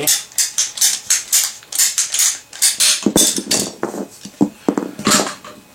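PVC pipe being cut by hand, with quick repeated cutting strokes about two to three a second. Hollow plastic knocks and clatter follow as the pieces are handled.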